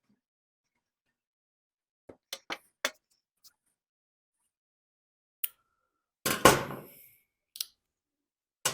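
Clicks and taps of small carburetor parts being handled on a workbench while a chainsaw carburetor is taken apart. A quick run of four or five clicks comes about two seconds in. A louder knock with a short ring comes about six seconds in, and there are a few single clicks between and after.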